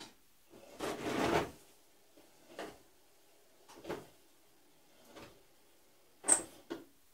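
A few separate short knocks and clatters with quiet between. The first is a longer rattle about a second in, and the sharpest, loudest one comes near the end, followed by a smaller one.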